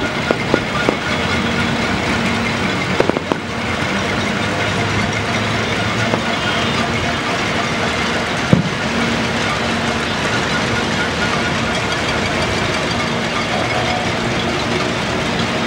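Cacerolazo: many pots and pans being banged across the city, a dense continuous clatter. Sharp firework bangs stand out over it: a few in the first second, a cluster about three seconds in, and the loudest about eight and a half seconds in.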